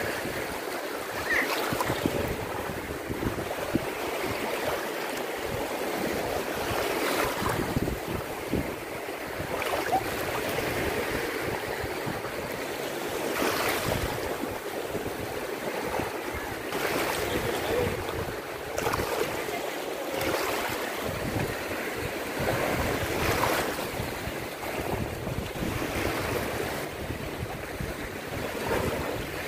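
Small waves washing in over shallow water at the shoreline, swelling softly every few seconds, with wind rumbling on the microphone.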